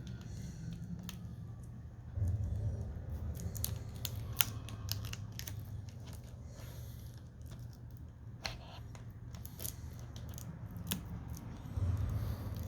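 Scattered small clicks and taps of fingers handling plastic and a display ribbon cable, pressing the screen connector into the back of a laptop LCD panel, over a low steady hum.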